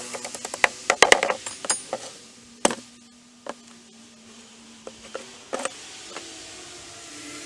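Sharp wooden knocks and clatter from deck-repair work: a quick run of clicks and knocks in the first two seconds, then a few single strikes, the loudest a little before three seconds in.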